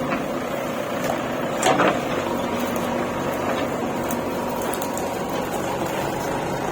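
A machine's motor running steadily, with a brief clatter about two seconds in.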